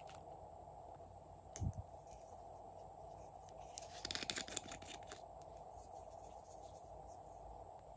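A soft thump, then a quick run of small clicks as the metal screw cap is twisted off a small plastic bottle, over a steady background hum.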